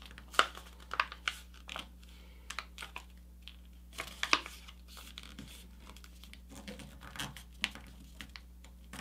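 Sheet of paper rustling and crinkling as a paper airplane's wing is folded over and the crease is pressed flat by hand, in scattered short crackles.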